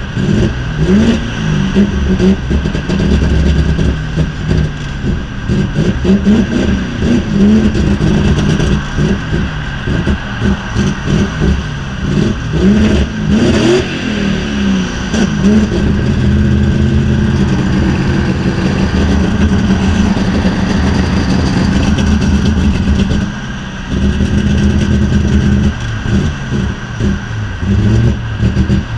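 BMW E36's swapped-in M60B40 4.0-litre V8, heard from inside the cabin while driving. The revs climb and drop repeatedly as it accelerates through the gears. Midway it holds a steady cruise, eases off briefly, then revs up again.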